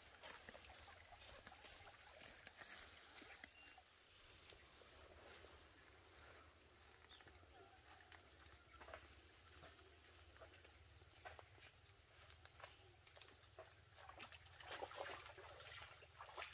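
Near silence: faint outdoor ambience, a steady high-pitched hum with scattered faint clicks and rustles, a few louder ones near the end.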